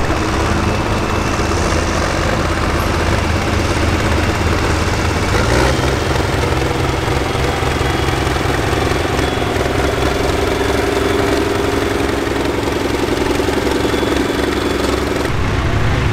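Farm stock diesel tractor engine running steadily, its speed stepping up about five seconds in, with an abrupt change in the sound shortly before the end.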